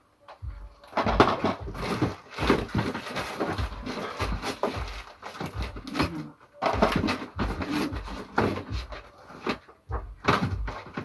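Packing noises: goods being handled and set into a cardboard box, a run of irregular rustles, knocks and clatters.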